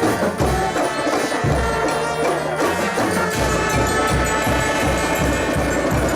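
Marching band playing live, with horns holding sustained notes over low drum hits. About halfway through, the drum settles into a steady beat of roughly three strokes a second.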